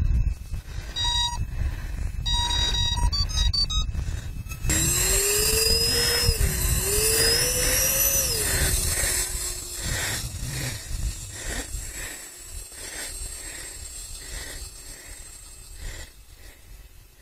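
Speed controllers of a twin electric-ducted-fan RC airliner model sound a short run of calibration beeps. Then the ducted fans spool up with a whine that rises and falls in pitch as the throttle is worked, steadies, and fades as the model taxis away.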